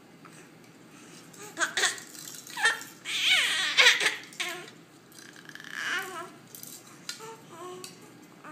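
Baby squealing and laughing: a run of high, gliding squeals starts about a second and a half in, is loudest around three to four seconds, then trails off into shorter, lower coos.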